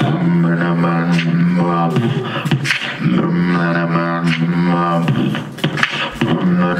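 Beatboxing into a handheld microphone: a hummed low bass note held for about two seconds at a time, three times over, with sharp percussive clicks cut in over it.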